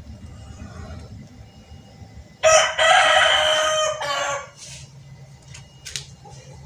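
A rooster crowing once, about two and a half seconds in. It is a loud, pitched call that lasts nearly two seconds.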